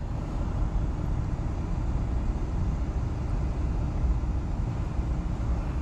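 Steady low rumble of outdoor background noise with a faint steady hum.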